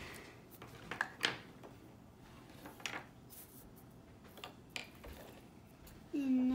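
Light scattered taps and rustles of a hand moving a sheet of drawing paper on a wooden tabletop, the strongest about a second in. Near the end a voice starts a steady, even hum.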